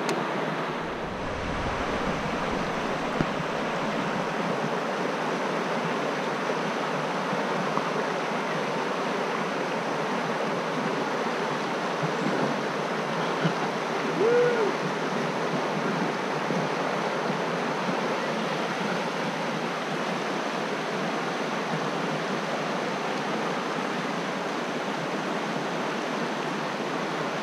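River water rushing steadily over a shallow, rocky rapid. About halfway through comes a single short hooting call that rises and falls.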